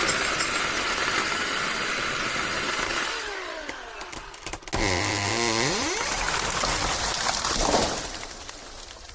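Ridgid 18-volt brushless cordless chainsaw running and cutting wood; its motor pitch falls about three seconds in, then slows further and picks up again around five to six seconds before the cutting noise resumes and fades near the end.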